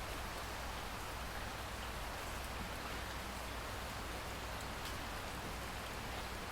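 Steady, even rainfall, with faint drops ticking on a surface.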